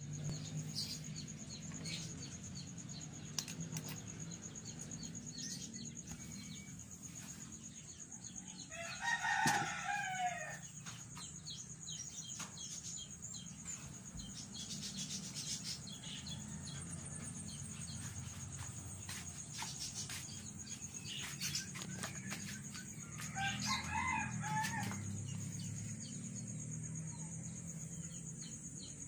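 A rooster crowing twice, once about nine seconds in and again around twenty-four seconds, over a steady high whine, a low hum and scattered small clicks.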